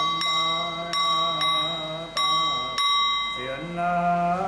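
A monk chanting in a steady, drawn-out voice while a bell is struck repeatedly, roughly every half second to a second, its ringing tone carrying between strikes. The chant breaks off briefly about three seconds in and resumes.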